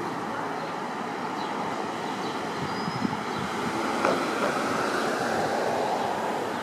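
Street traffic noise with a New Flyer XD40 Xcelsior diesel city bus pulling away, and a couple of light knocks about three and four seconds in.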